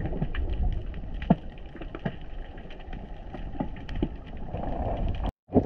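Underwater ambience picked up by a camera in its housing: a muffled low rumble with scattered sharp clicks and crackles, cutting off abruptly near the end.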